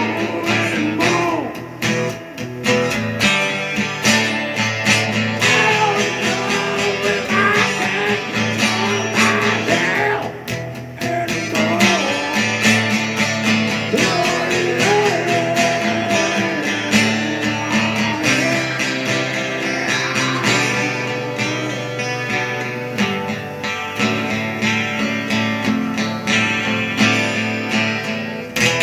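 A man singing along with a strummed acoustic guitar, the strums running steadily under the vocal line.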